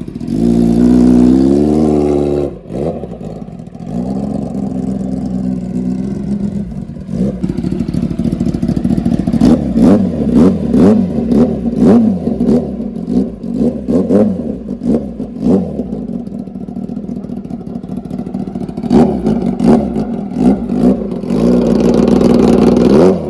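Kawasaki ZX-10R's inline-four engine revving through a trumpet fitted in place of its exhaust. There is a rising rev about a second in and a held rev, then a string of quick throttle blips, and a long rev near the end.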